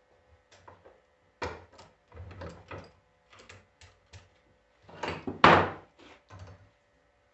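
Irregular knocks and clatter of tools and metal parts being handled while a car starter motor is assembled, with the loudest knock a little over five seconds in.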